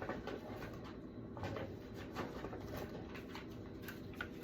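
Disposable cameras being handled and counted: faint scattered clicks and short rustles as the plastic cameras are picked up and moved back into a bag.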